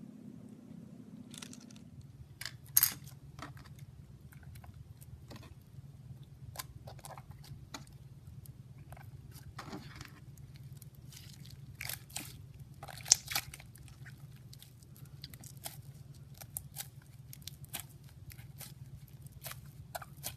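Hands squeezing and working slime, making irregular sticky clicks and small pops, with a couple of louder snaps about three seconds in and again about thirteen seconds in. A steady low hum runs underneath.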